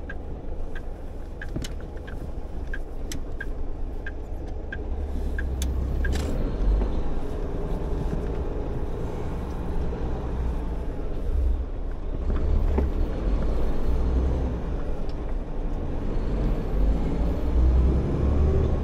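Tractor-trailer's diesel engine running with a steady low rumble, a little louder after about six seconds. Over the first six seconds the turn-signal indicator ticks about twice a second, then stops.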